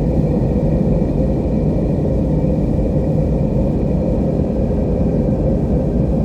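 Beach surf heard as a steady, low wash of water with no separate waves breaking, and faint held tones above it.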